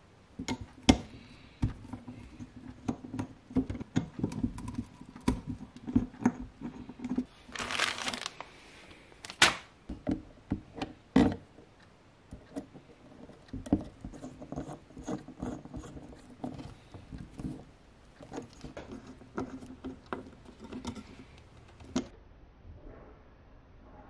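Hands working on an FPV quadcopter on a wooden workbench: sharp clicks and taps of plastic propellers being fitted onto the motors and small parts and tools handled, with a noisy rasp about a second long around eight seconds in.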